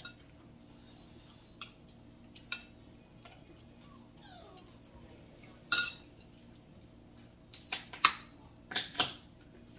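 Metal spoon clinking against a ceramic plate and bowls during a meal: scattered light clinks, a sharper one about halfway, and a quick run of four or five louder clinks near the end.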